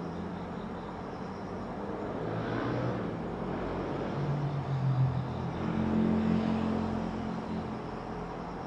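Distant road traffic: a motor vehicle's engine passes, swelling about two seconds in, loudest in the middle with its note rising, then fading near the end, over a steady background of traffic noise.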